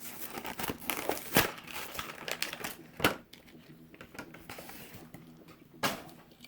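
Plastic blister packaging and its card crinkling and tearing as a 1/64 diecast car is worked out of the package, with three sharp cracks of plastic spread through the crackling.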